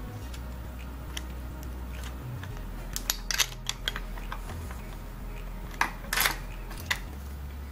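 Scattered sharp clicks and light knocks of small metal and plastic bike parts being handled and worked loose, over a steady low hum.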